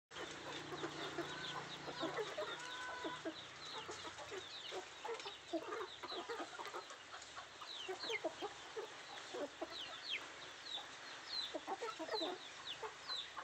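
Country chickens clucking as they forage, with many short, high, falling chirps throughout and one drawn-out call about two seconds in.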